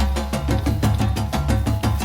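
Background music with a fast, steady percussive beat and a bass line.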